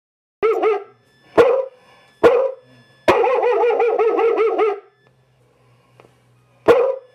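Electronic Secure Dog alarm's loudspeaker playing recorded dog barking, the sign that it has been set off. Three single barks come about a second apart, then about a second and a half of fast, wavering barking, and one more bark near the end.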